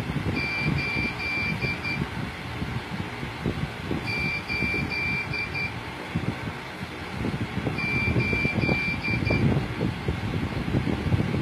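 Street traffic rumble with an electronic beeper sounding in repeated bursts: about six short high beeps in a second and a half, with the burst coming back roughly every four seconds.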